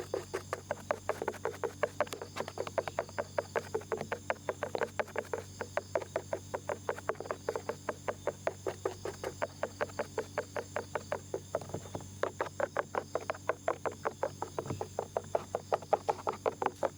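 Small ear pick scratching close to the microphone in quick, rapid strokes, about five or six a second, easing off a little around the middle.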